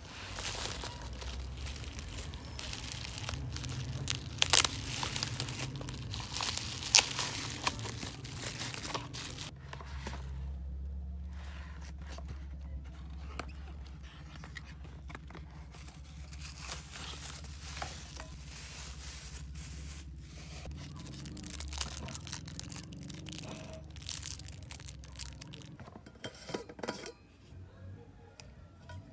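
Plastic bubble wrap crinkling, crackling and tearing as it is pulled off a package by hand, busiest and loudest in the first ten seconds or so. Then quieter handling of a cardboard box being opened and the taps of a clear plastic cup lid.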